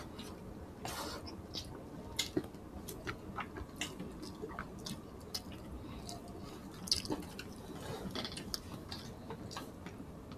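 Close-miked eating sounds: soft chewing and wet lip and finger smacks as two people eat roast pork belly and rice with their hands, in scattered, irregular small clicks.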